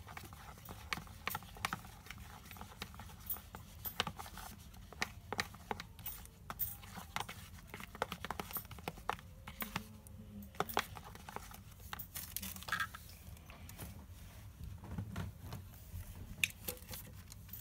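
Glue-based slime being stirred with slime activator as it thickens toward a jelly: many irregular sharp sticky clicks from the mix, over a low steady hum.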